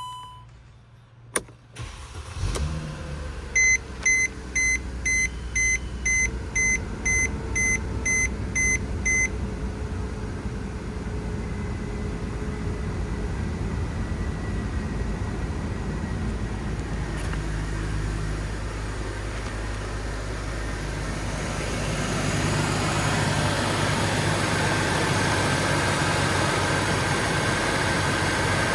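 A 2008 Mercedes C350's 3.5-litre V6 starts about two seconds in and settles into an idle. A warning chime beeps about twice a second for several seconds just after it catches. The running engine grows louder about 22 seconds in.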